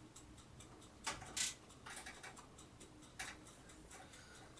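Power-supply cable connectors and their plastic plugs being handled and pushed in inside a PC case: a few light clicks and scrapes, the loudest about one and a half seconds in, another about three seconds in. The connectors are not latching with a click.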